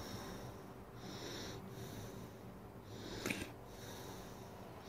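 Soft breathing through the nose close to the microphone, a few slow breaths. One short click a little past the middle.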